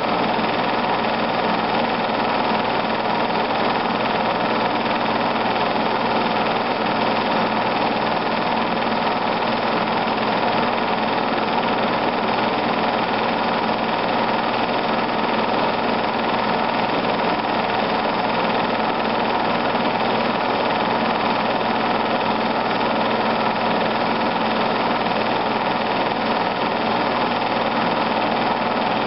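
Film projector running: a steady, unchanging mechanical whir.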